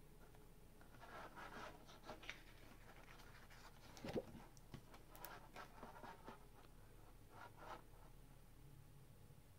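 Faint rustling and scraping of a paper calendar page being flipped over and handled, with a soft tap about four seconds in.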